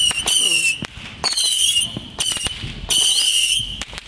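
Fireworks going off: about four shrill whistles, each about half a second long, mixed with sharp cracks and pops.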